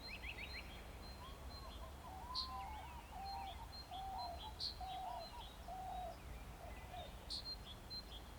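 Forest ambience of several birds calling over a low steady rumble: short whistled notes, quick high chirps, and three sharp high chips a couple of seconds apart.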